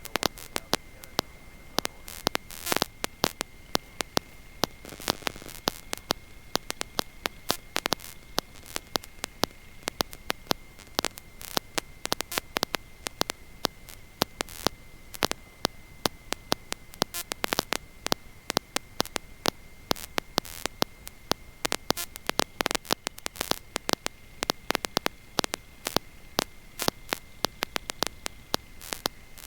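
Crackling static with frequent irregular clicks over a steady high-pitched whine, the electrical noise of the Stearman biplane's intercom audio feed in flight.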